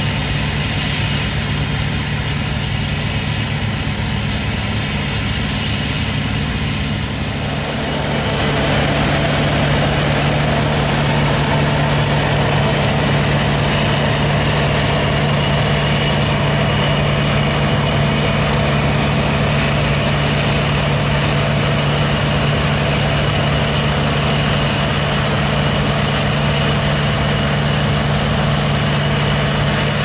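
New Holland TC56 combine harvester running steadily while harvesting rice: a constant low engine hum under the noise of the header and threshing works. About eight seconds in, the sound grows a little louder and fuller.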